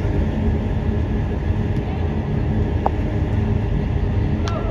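Steady low rumble and hum inside an air-supported sports dome, typical of its inflation blowers. A short squeak comes about three seconds in, and a sharp knock near the end.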